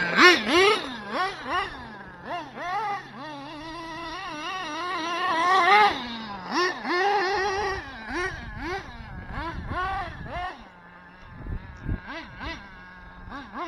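Nitro RC buggy's small Dynamite .26 glow engine with a tuned pipe, revving up and down in quick throttle blips as it is driven, its pitch swinging constantly. It drops back for a moment about eleven seconds in.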